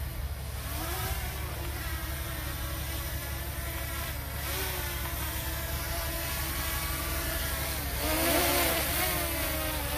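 Heavy diesel engine of earthmoving machinery running, its pitch rising and falling as it revs, growing louder about eight seconds in.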